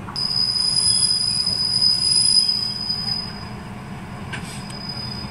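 Slovak ZSSK class 810 diesel railbus pulling into a station, its wheels giving a steady high-pitched squeal over the low rumble of the running gear. The squeal sets in just after the start, is loudest around the middle and dies away near the end.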